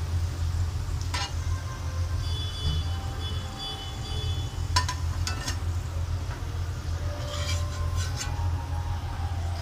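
A slotted steel spoon scrapes and clinks against a steel kadhai as fried onions are lifted out of hot oil, which sizzles faintly. Under it runs a steady low hum.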